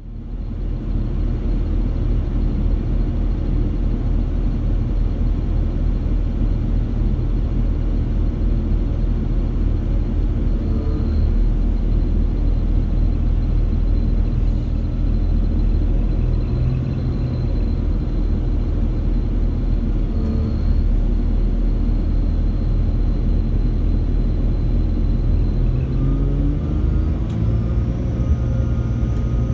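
Class 196 (CAF Civity) diesel multiple unit's MTU 6H 1800 inline-six diesel engines running steadily with a low rumble and a faint high whine. Near the end the engines rise in pitch as they work harder, with a high rising turbocharger whistle.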